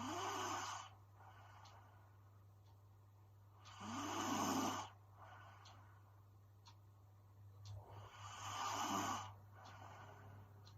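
A woman snoring in her sleep: three snores about four seconds apart, each about a second long with a tone that rises and falls, and a softer breath out after each.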